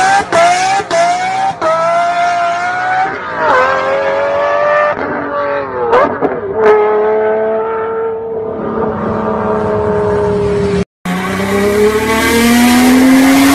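A Lamborghini V12 supercar accelerates hard away from a burnout with tyre squeal. Its engine note climbs and breaks through quick upshifts, then fades into the distance. After a short cut, a Nissan GT-R's twin-turbo V6 revs on a chassis dyno, its pitch rising steadily under load.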